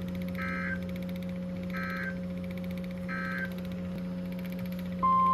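Emergency Alert System end-of-message code over weather radio: three short digital data bursts, each alike and about 1.4 s apart, over a steady radio hum. Near the end a steady, louder single-pitch alert tone starts.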